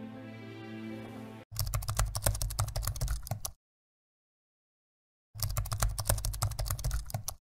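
Music fading out, then a computer keyboard typing sound effect in two runs of rapid keystrokes, each about two seconds long, with dead silence between them, matching caption lines typing onto the screen.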